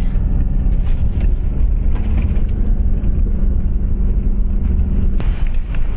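Motor vehicle running, a steady low engine drone with rough road noise.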